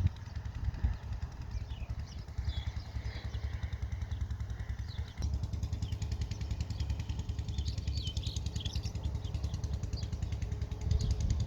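Wind buffeting the microphone in a steady low rumble, with small birds chirping over it in scattered bursts.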